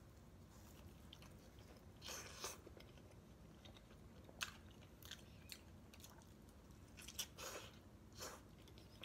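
Faint chewing of a mouthful of potato pizza, with scattered soft crunches of the crust, loudest about two seconds in and again around seven to eight seconds in.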